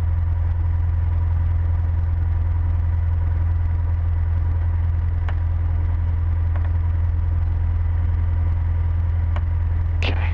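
Cessna 150's four-cylinder Continental O-200 engine idling steadily, heard inside the cockpit, while the plane holds on the runway before the takeoff roll. A few faint ticks can be heard over the drone.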